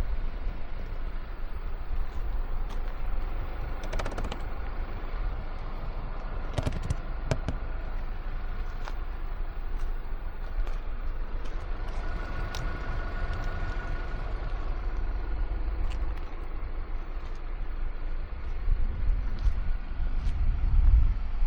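2025 Mercedes-Benz C200 driving: a steady low rumble of road and engine noise, with scattered knocks and clicks, loudest about four and seven seconds in.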